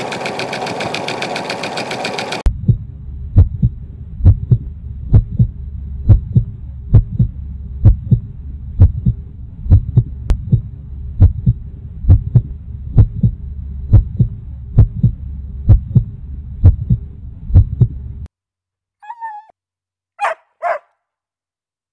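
A sewing machine running at speed stops abruptly about two seconds in. Then a slow, even heartbeat thumps a bit under once a second over a low hum for about fifteen seconds and cuts off, followed near the end by a few short dog yelps.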